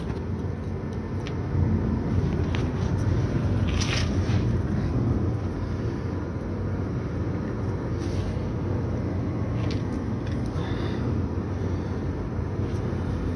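Steady low rumble throughout, with a few light metallic clicks as a wrench is fitted on a brake caliper's bleeder screw.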